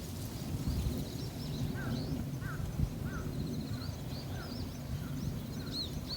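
Small songbirds calling: repeated short rising-and-falling chirps and a few quick trills, over a steady low rumble.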